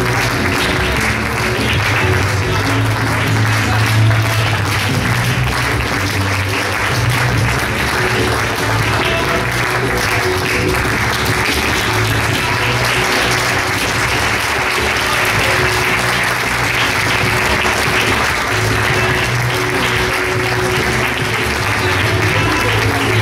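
Audience applause, steady and sustained, over music playing through the hall.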